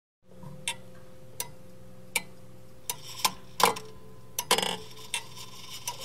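Wall clock ticking slowly, about four ticks every three seconds, over a faint steady hum; from about three seconds in a few louder, irregular clicks and knocks join the ticking.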